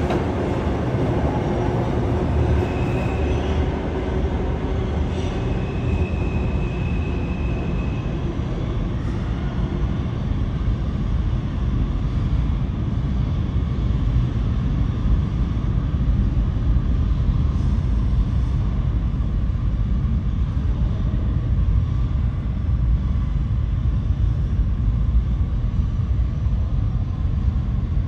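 R142 subway train running out of the station: the last cars go by with a brief high tone twice in the first several seconds. The train noise then fades into a steady low rumble as it recedes into the tunnel.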